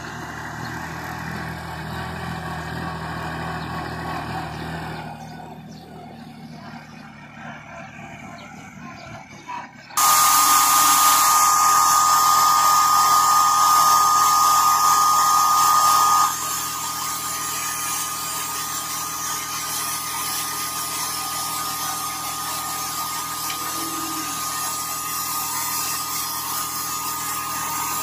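Kubota tractor engine running as the tractor moves along the vineyard row, fading after about five seconds. About ten seconds in, the sound switches abruptly to the ESS air-assisted sprayer running: a steady high whine over rushing air, loudest for about six seconds, then continuing a little quieter.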